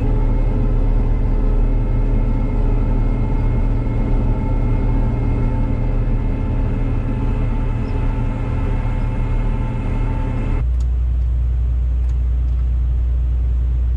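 A vehicle engine running steadily with a low rumble. About ten and a half seconds in the sound changes abruptly to a lower, steadier hum.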